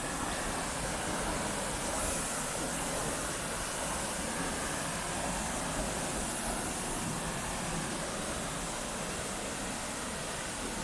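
Steady rushing of a small waterfall, about 20 m high, falling into its pool.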